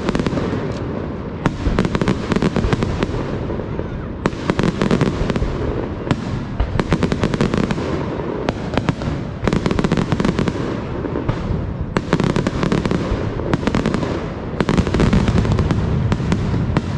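Aerial fireworks display: dense clusters of sharp cracks and crackling salvos come every second or so over a continuous low rumble of bursting shells.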